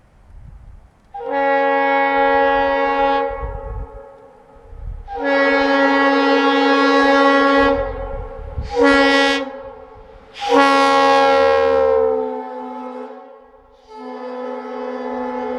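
Multi-chime locomotive air horn sounded in blasts. It gives two long blasts, a short one, then a fourth whose chord sags in pitch as it dies away, and a fifth starting near the end.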